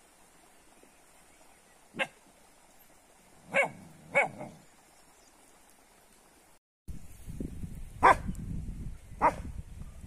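Kangal shepherd dogs barking: short single barks, two of them close together, six in all, spaced a second or more apart. After a brief break, the later barks come over a low rumble.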